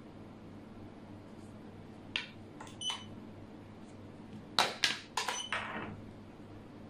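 Xiangqi pieces clacking on the board as moves and a capture are made: a couple of light clicks about two seconds in, then a quick run of louder clacks around five seconds in.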